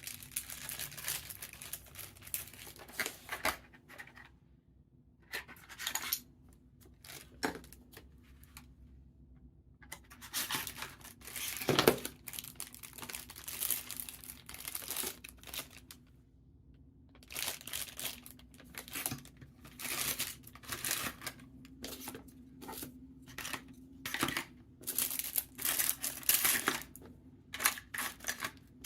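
Keyboard packaging being unwrapped: crinkling and tearing of wrapping in irregular bursts with short pauses, and a sharper knock about twelve seconds in.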